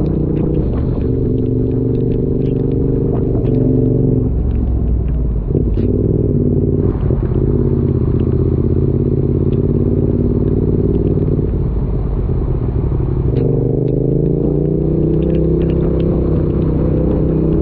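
Motorcycle engine running on the move, its pitch shifting up and down several times with the throttle, with scattered ticks and crackles of rain.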